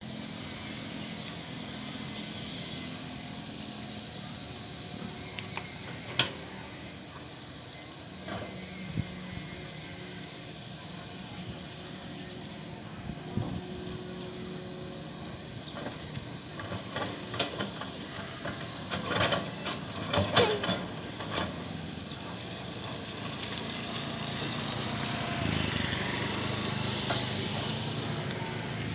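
Excavator engine running steadily, with scattered sharp clanks and knocks and brief high squeaks; it grows somewhat louder near the end.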